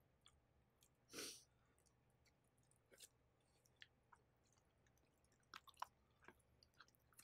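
Faint chewing of a mouthful of chicken and rice, with scattered small clicks and one short breathy noise about a second in.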